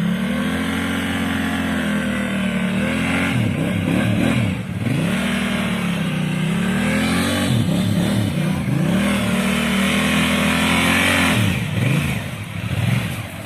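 Large adventure motorcycle engine running under load, its pitch held steady for stretches, then dropping and climbing again several times as the throttle is shut and reopened.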